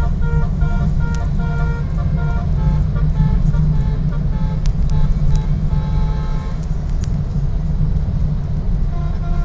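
Bus telolet horn playing short melodic phrases of tooting notes, in the first two seconds and again around five to six and a half seconds in, over a steady low engine and road rumble.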